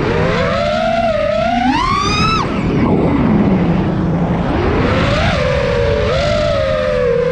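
FPV quadcopter's brushless motors and propellers whining with the throttle: the pitch climbs over the first two seconds, drops sharply, and after a rougher stretch settles into a steadier whine that wavers slightly.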